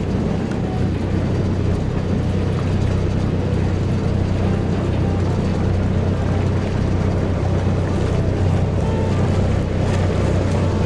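Excursion boat's engine running underway with a steady low hum, under a steady rushing noise.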